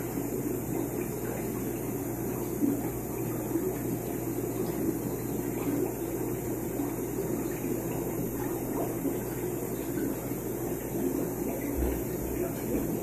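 Steady bubbling of an air-driven sponge filter, its airlift releasing a stream of air bubbles at the water surface, over a steady low hum.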